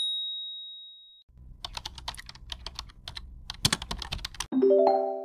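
Computer keyboard typing sound effect: a rapid run of key clicks lasting about three seconds, closed by a bright chime of several tones that fades out. A short high ping fades away at the start.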